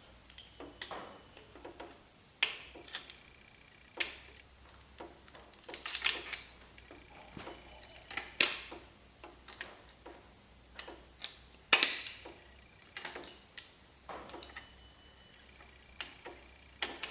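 Light metal clicks and taps at irregular intervals, with a few louder, slightly longer ones, from tools working at stuck, mushroomed lifters in a small-block Chevy 350 engine block.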